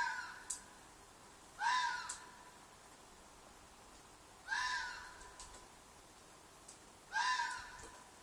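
A fox shrieking: short, loud, arched cries, each rising then falling in pitch with a trailing echo, repeated about every three seconds (four in all). This is the screaming call the uploader takes for a fox's mating call.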